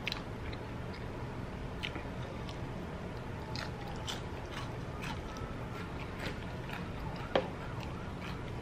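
Close-up mouth sounds of a person chewing fried onion rings: scattered wet clicks and smacks, with one sharper, louder click about seven seconds in.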